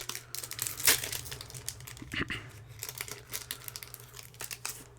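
Crinkling and tearing of a Pokémon booster pack's foil wrapper being handled and opened: a dense run of irregular crackles, with one sharper snap about a second in.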